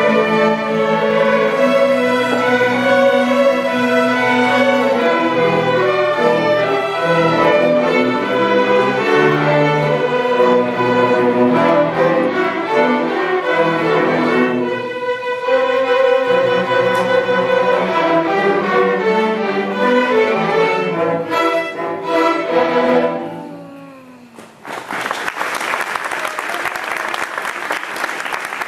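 Middle-school string orchestra of violins and cellos playing, ending on a final note that fades out about 23 seconds in. Audience applause follows for the last few seconds.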